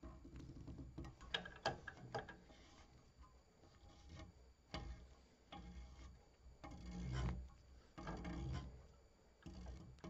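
Faint clicks and rubbing of a hand-held metal pinch-off tool being fitted onto a copper refrigeration tube and its wing screw turned, to reopen the pinched tube.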